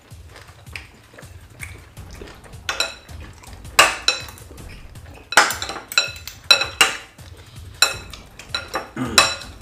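Cutlery clinking against bowls as people eat, in irregular sharp strikes that ring briefly; they are faint at first and come louder and more often from about three seconds in.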